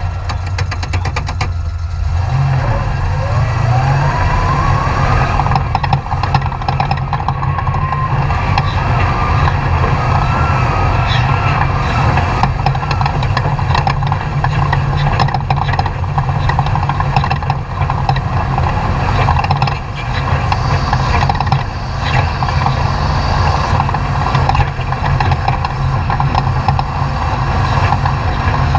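Off-road race truck's engine running hard, its pitch climbing about two seconds in and then rising and falling with the throttle over a steady low drone, with many short knocks throughout.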